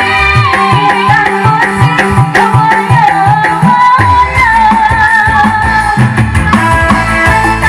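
A woman singing into a microphone over a Korg Pa600 arranger keyboard, whose accompaniment carries a steady drum-and-bass beat.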